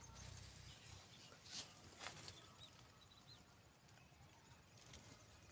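Near silence: a faint background with two soft taps or rustles about one and a half and two seconds in, and a few faint high chirps around three seconds in.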